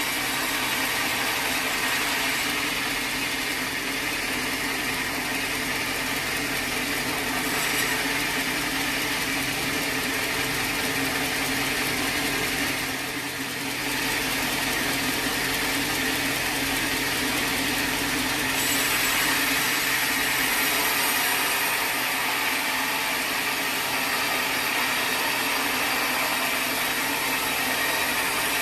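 Sawmill machinery running steadily with a dense mechanical noise that dips briefly about halfway through.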